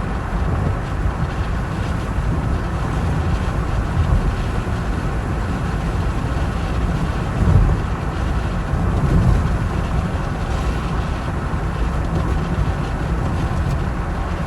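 Car driving: a steady low rumble of engine and road noise, with a few brief louder swells.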